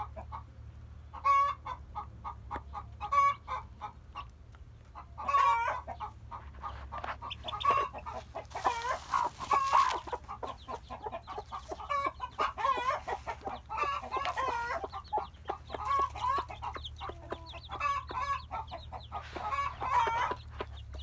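Chickens clucking: many short calls repeating and overlapping, over a steady low hum.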